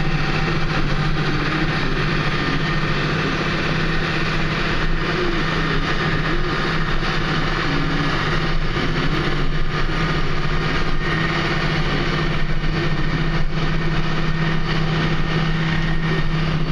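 Large John Deere tractor's diesel engine running at a steady speed, a constant low hum with no change in pitch.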